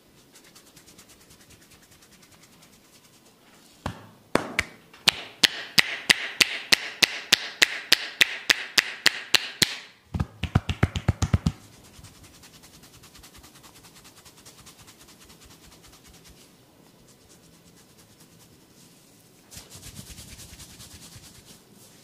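Hands tapping and slapping on a person's head during a head massage: a run of sharp, evenly spaced slaps at about four a second for some six seconds, then a quicker burst of taps. A brief rubbing sound follows near the end.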